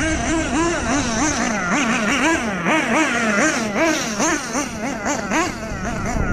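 Kyosho USA-1 Nitro monster truck's small nitro engine buzzing and revving up and down over and over as the throttle is worked, its pitch rising and falling two or three times a second.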